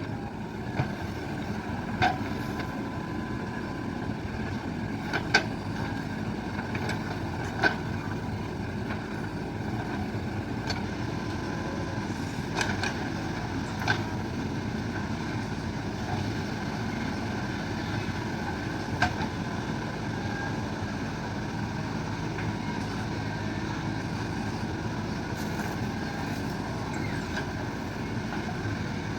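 JCB backhoe loader's diesel engine running steadily at working speed, with a few sharp metallic knocks scattered through it, about six in all.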